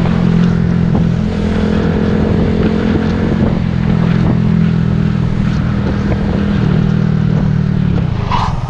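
Motorcycle engine running at a steady pitch while riding at road speed, heard from on the bike. About eight seconds in, the engine note drops away as the throttle is closed.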